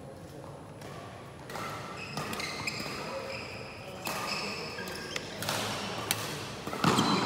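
Badminton rally in a large hall: rackets crack sharply against the shuttlecock, several times in quick succession about five to six seconds in and loudest near the end, with shoes squeaking and scuffing on the court floor.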